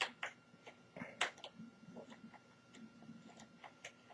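Light, irregular clicks and ticks of a small screwdriver working a screw out of the back of an Acer TravelMate 201T laptop, the sharpest at the start and about a second in.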